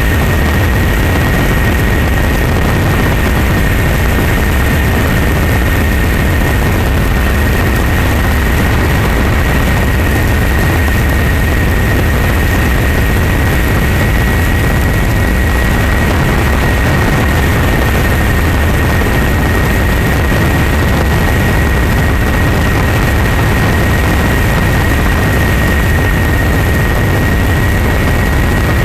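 Loud, steady engine drone with deep rumble and a constant high-pitched whine, unchanging throughout.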